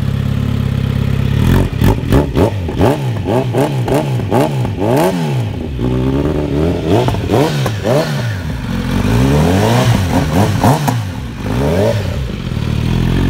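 Kawasaki Z900RS Cafe's inline-four engine, breathing through an Akrapovic header, idling and then revved in a long run of quick throttle blips, each a fast rise and fall in pitch, settling back to idle near the end.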